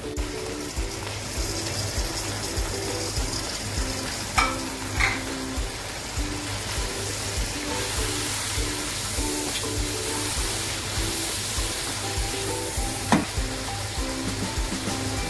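Beef and ground spices frying in hot oil in a pan: a steady sizzle as they are stirred with a silicone spatula, with a few sharp knocks of the spatula on the pan. Background music with a steady beat runs underneath.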